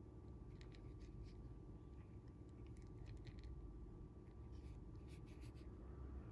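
Faint scratchy rustling of fingers handling monofilament fishing line while tying a knot, in a few short patches over a low room hum.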